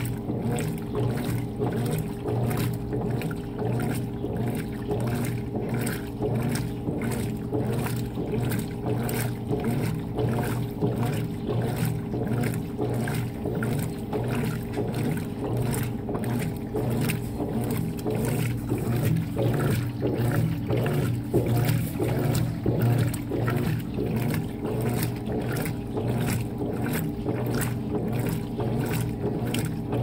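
Consul 16 kg top-load washing machine agitating a soapy load of laundry: a steady motor hum under rhythmic sloshing surges of water and cloth, about two a second.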